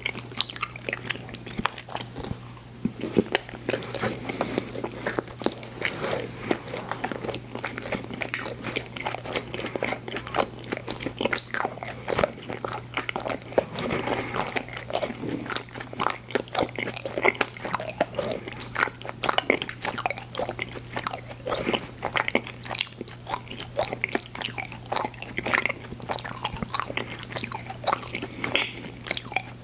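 Close-miked eating of candy and sweets: continuous biting and chewing with crunching and many small mouth clicks, over a steady low hum.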